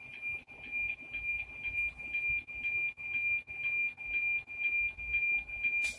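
NOAA 19 weather-satellite APT signal demodulated by a software-defined radio: a steady 2.4 kHz tone ticking in an even rhythm, about four beats a second, over radio hiss.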